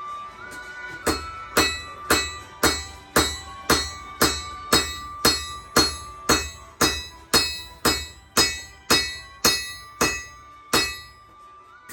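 Hammer blows on steel over an anvil, about two a second in a steady rhythm, each blow ringing out. They start about a second in and stop near the end.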